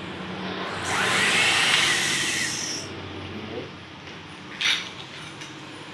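Electric hand mixer whirring as its beaters whip eggs and sugar until they are frothy and pale. The whir is loudest between about one and three seconds in, then dies down as the mixer is lifted out. A short clatter follows at about four and a half seconds.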